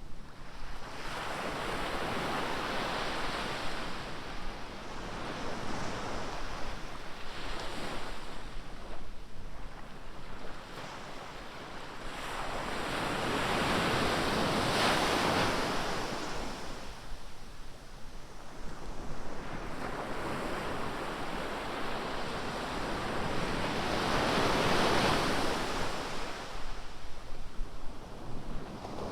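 Ocean surf: waves breaking and washing up the beach, the rush of water swelling and fading every several seconds, with the biggest swells in the middle and near the end.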